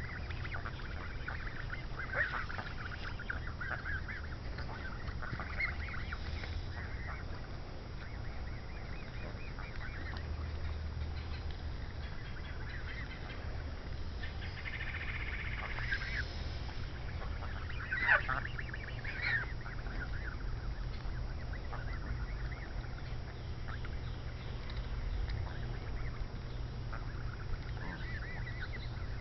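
A flock of young, nearly grown Canada geese calling: frequent soft short calls through the first several seconds, then scattered honks, with one loud honk a little past the middle. A steady low rumble runs underneath.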